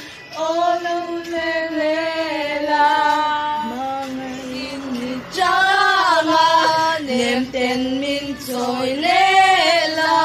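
A woman singing a slow melody in long held notes, with no clear instrumental backing.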